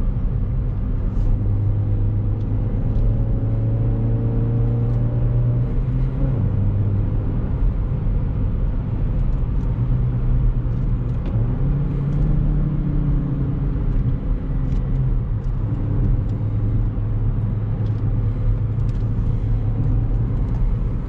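Chevrolet Beat engine with a K&N air filter pulling uphill, its pitch climbing from about two seconds in, dropping sharply about six seconds in, then climbing again around twelve seconds in.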